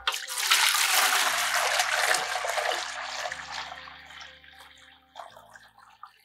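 Cow's milk poured from a plastic bucket into an aluminium pot, a splashing gush that starts suddenly, is loudest for the first few seconds and fades away towards the end.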